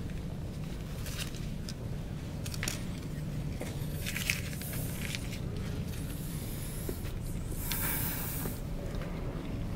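Steady low room hum with faint scattered clicks and rustles, and two short hisses: a brief one about four seconds in and a louder one, about a second long, near the end.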